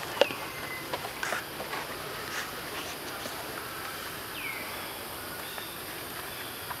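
Forest ambience: a steady background hiss with scattered light clicks, one sharp click about a quarter second in, and two short whistled calls that slide down in pitch, one near the start and one about four and a half seconds in.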